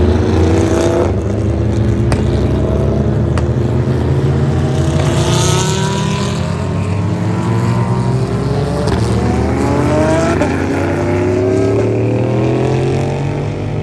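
Super GT race cars running past at speed, several engines overlapping over a steady low rumble. In the middle, engine notes climb in pitch one after another as cars accelerate through the gears.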